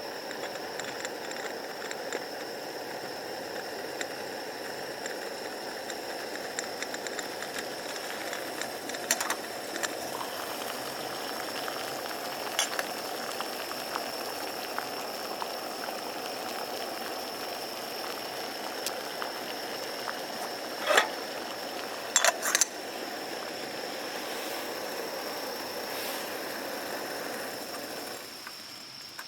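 Water heating toward the boil in a small camp pot: a steady hiss that cuts off suddenly near the end, with a few sharp metallic clinks. A thin, steady high insect drone runs underneath.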